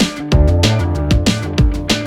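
Background music with a steady electronic drum beat over bass and plucked guitar-like notes.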